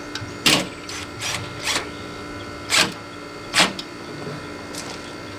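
Power screwdriver driving screws through a polycarbonate storm panel into an aluminum window frame, in about seven short, irregularly spaced bursts over a faint steady hum.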